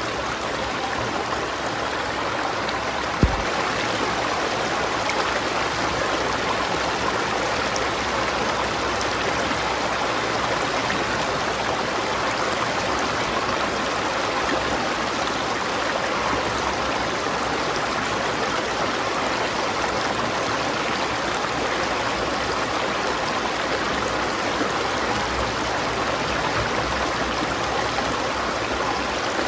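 River water running steadily, an even rushing flow, with a single brief low thump about three seconds in.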